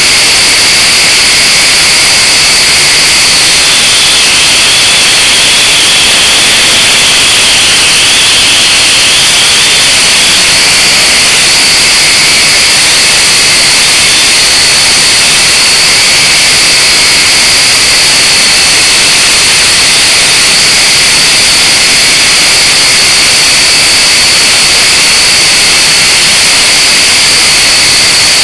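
Blade 180 QX quadcopter's four motors and propellers whining steadily, very loud and close as heard by the aircraft's own onboard camera, the pitch shifting a little now and then as it flies.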